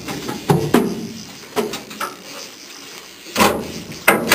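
Several sharp knocks and clacks at irregular intervals from a heavy boat rod and conventional reel being handled and cranked while fighting a fish.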